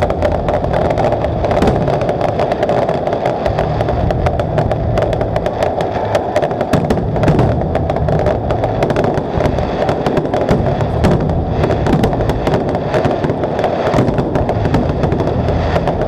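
Aerial fireworks going off in a dense, continuous barrage: bangs, pops and crackles in quick succession with no pause.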